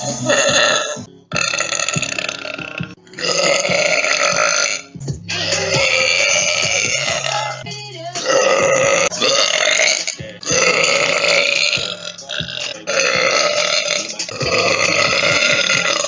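A woman belching: a string of about seven long, drawn-out belches, each lasting a second or two, with short pauses between them.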